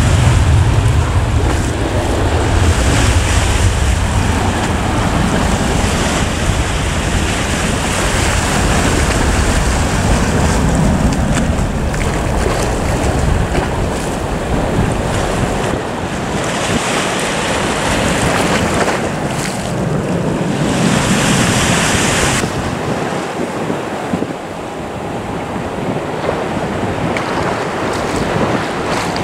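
Strong wind buffeting the microphone, a steady loud rushing with hissy gusts, over a low rumble that fades over the first few seconds.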